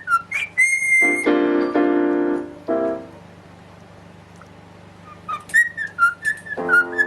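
Whistling in quick runs of short notes, with one held whistle about half a second in. Twice it is followed by longer, lower calls lasting a second or more. A pause near the middle.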